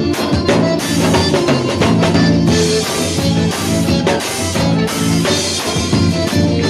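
Live band playing an instrumental xote: drum kit keeping a steady beat under accordion and other held notes, with cymbal wash swelling twice.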